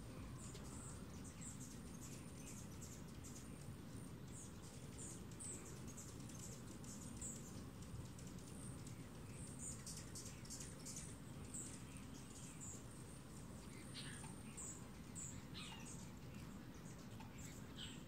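Hummingbirds chipping at a nectar feeder: many short, high chips in quick, irregular runs, with a few lower, downward-sweeping chips near the end, over a low steady rumble.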